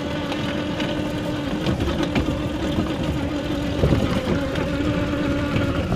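Homemade barrel car's electric drive motor whining at a steady pitch as it drives off over rough dirt. The frame rattles and knocks over bumps a few times along the way, and the whine stops near the end.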